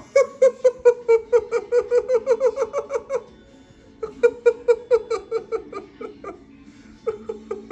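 A person laughing hard: long runs of quick, high-pitched 'ha' pulses, about five a second, breaking off twice for breath.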